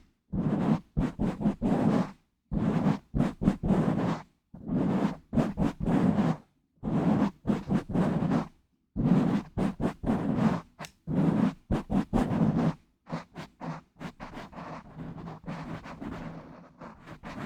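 Fingers rubbing and scratching directly on an uncovered microphone: runs of quick strokes in bursts of a second or two, broken by short silences. About 13 seconds in it turns into quieter, continuous fast scratching.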